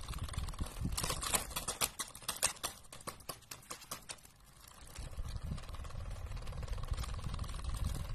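A small electric desk fan running with a steady hum and a low rumble of moving air. From about a second in, a quick clatter of clicks and taps lasts for a couple of seconds.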